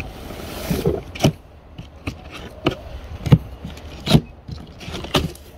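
Large cardboard box being handled and turned on grass: a brief scraping rush, then a series of separate knocks and thumps against the cardboard.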